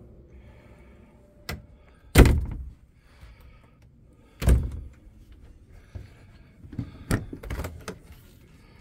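Wooden cabinet and closet doors being handled, opened and shut: a string of separate knocks and thuds, the loudest about two seconds in and another about halfway, then a cluster of smaller clunks near the end as a refrigerator door is opened.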